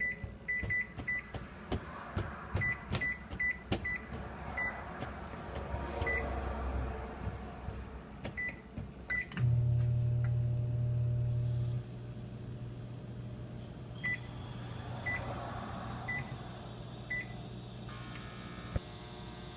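Oven control panel beeping with a run of short high beeps as buttons are pressed, then the oven starting up with a steady low hum about halfway through, louder for the first couple of seconds. Four more beeps come about a second apart later.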